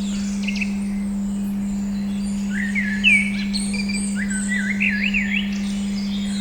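A steady 200 Hz pure tone hums without a break under songbirds chirping in short phrases. About three seconds in there is a burst of chirps, and near five seconds a quick run of rising and falling notes.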